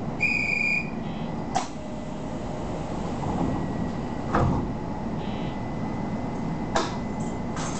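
Nishitetsu electric commuter train standing at a station, with a short high electronic beep near the start and then several sharp knocks and thumps from the sliding doors, the loudest about halfway through. A steady low rumble and a faint steady high tone run underneath.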